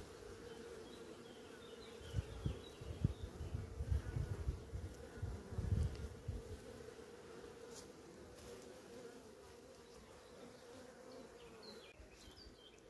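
Honeybees buzzing in a steady hum as they fly in and out of busy hive entrances. A few low thumps come in the first half, and the hum fades near the end.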